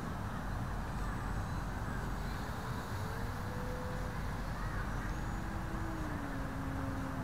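Wind buffeting the microphone, with the faint hum of the E-flite Timber's electric motor and propeller as the RC plane flies low past, its pitch rising and then dropping lower in the second half.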